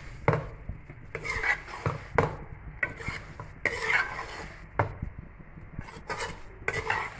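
A steel spoon stirring macaroni in a metal pot, scraping along the pot's side stroke after stroke, about one a second, with sharp clinks of metal on metal.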